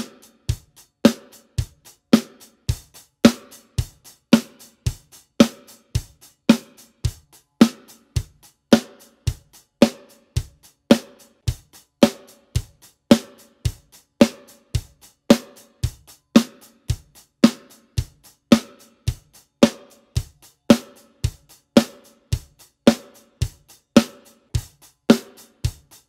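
A drum kit playing a steady, simple beat, with the bass drum and the Evans-headed snare alternating over the hi-hat. The same beat is played with one pair of wooden drumsticks after another, from a maple Crann Slapper through Vic Firth 5A to a Crann For You pair, so each stick's tone on the snare can be compared.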